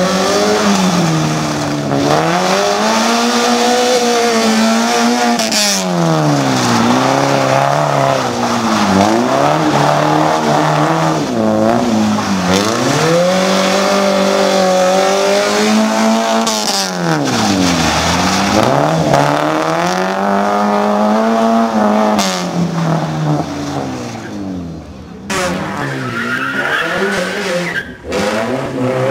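Peugeot 106 rally car's engine being driven hard, its pitch climbing and dropping again and again every few seconds as it accelerates and lifts off through a tight course. Tyres squeal near the end as the car slides around a turn.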